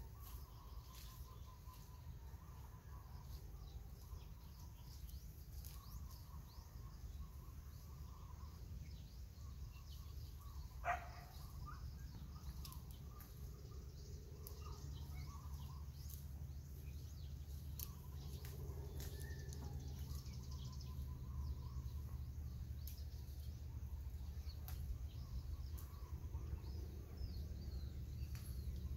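Faint bird chirps over a low steady outdoor rumble, with one short, louder sound about eleven seconds in.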